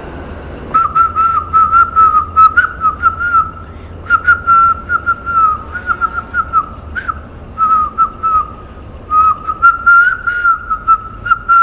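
A high whistled call: short notes, about four a second, each with a slight upward flick, in runs of two to three seconds separated by brief pauses. Those who hear it take it for either a bird or someone whistling.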